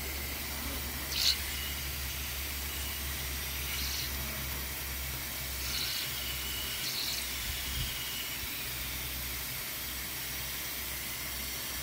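Steam injector on a 5-inch gauge live steam Garratt running: a steady hiss of steam with water spilling from its overflow, broken by a few short, sharper spits, the first about a second in. The injector is picking up and feeding water into the boiler.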